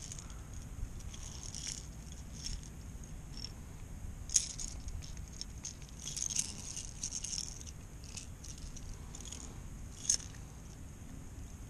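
Scattered small clicks and rattles of hands working a fishing lure, hook and small trout while unhooking the catch in a kayak, over a low steady rumble. The sharpest click comes about four seconds in, with a busy run of clicks a couple of seconds later.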